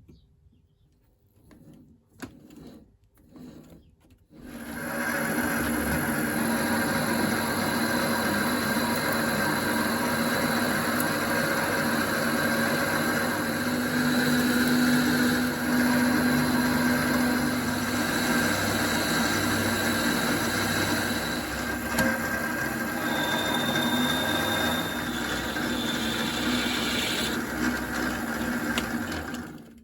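A few light knocks, then an electric power tool starts about four seconds in and runs steadily with a constant whine until it stops just before the end.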